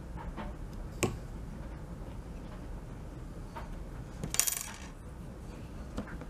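A few small metal clicks from handling the rifle's parts, then a short metallic jingle a little past four seconds in as a small steel Allen key is dropped down.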